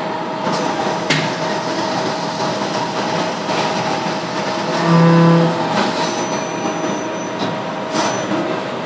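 DMG Mori CTX 310 CNC lathe running under flood coolant, its spindle turning the part while a drill in the turret cuts, with a steady whine over the coolant spray. About halfway through a louder low hum comes in for about a second, and there are a few sharp clicks.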